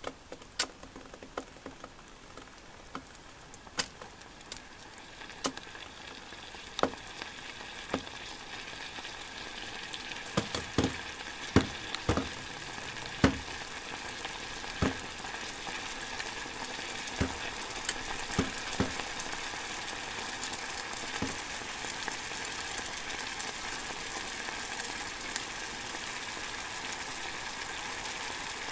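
A little water heating under cut asparagus pieces in a stainless steel pan and coming to a simmer: a sizzling hiss that grows louder through the first ten seconds or so and then holds steady, with scattered sharp pops and crackles, thickest around the middle.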